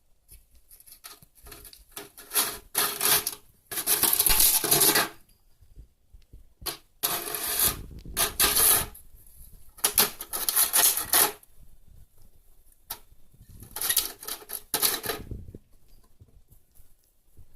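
Thin plastic food-pack lid clattering and scraping on a hard surface as a cat knocks it about, in several bursts separated by short pauses.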